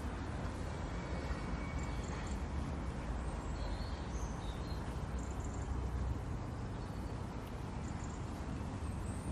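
Outdoor city ambience: a steady low rumble with a few faint high chirps.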